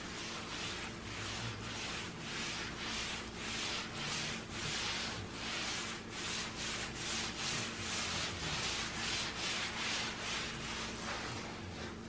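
A cloth rag wiping wood stain onto a bare wood panel: steady back-and-forth rubbing strokes, about two a second.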